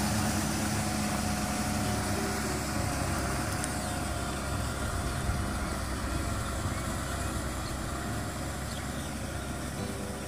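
Kubota tractor's diesel engine running steadily as it pulls a rotary tiller through wet paddy mud, slowly fading as the tractor moves away.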